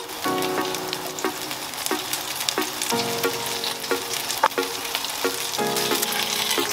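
Potato-and-cheese tacos frying with a steady sizzle in a nonstick pan, with scattered light clicks of a metal spoon against a steel bowl and plate.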